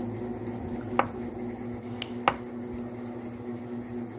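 Eating crisp unripe mango: two short, sharp clicks about a second and a half apart, over a steady low hum.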